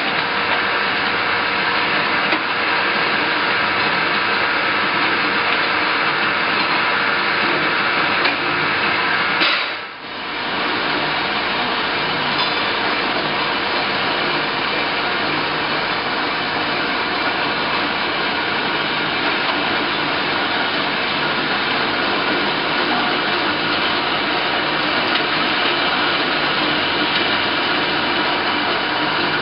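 Johnson Model J horizontal bandsaw with a 3/4-inch blade cutting through heavy metal stock, a steady loud sawing noise over the running motor and drive. About ten seconds in it briefly jumps and drops away, then carries on as before.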